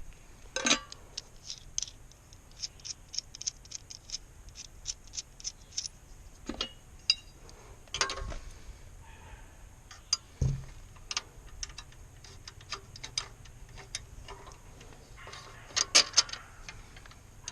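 Small clicks, ticks and knocks of parts being handled and fastened while a pressure washer's handle is fitted: a quick run of light ticks, with a few louder knocks scattered through.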